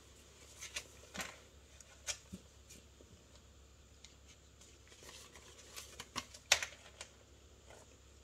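Canadian polymer banknotes being handled and laid down on a tabletop: scattered faint crinkles and light taps, a few in quick succession around six seconds in, the sharpest at about six and a half seconds.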